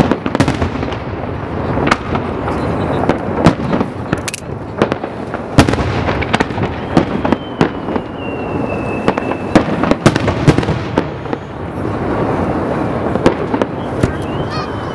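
Aerial firework shells bursting in rapid, irregular succession, loud sharp bangs over a continuous rumble of further bursts. A thin whistle, sliding slightly down in pitch, runs for a couple of seconds about seven seconds in.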